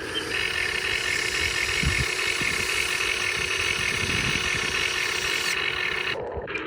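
Remote-controlled model excavator's motor running with a steady whine, briefly cutting out near the end.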